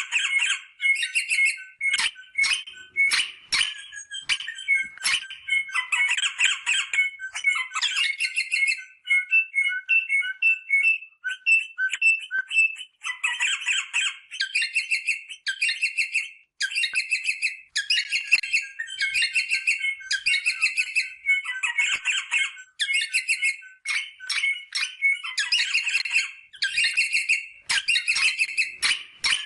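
Rosella parrots calling: runs of harsh, chattering squawks repeated every second or two with short gaps between them, and a few sharp clicks in the first few seconds.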